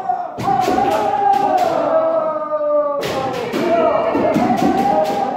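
Several kendo students giving long, drawn-out kiai shouts that overlap and swell and fade twice, about three seconds apart. Between the shouts come sharp cracks of bamboo shinai strikes and foot stamps.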